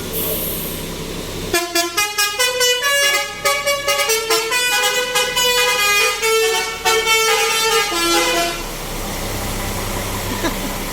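A bus's Basuri telolet horn, a multi-trumpet melody horn, plays a quick tune of changing notes. It starts about a second and a half in and lasts about seven seconds.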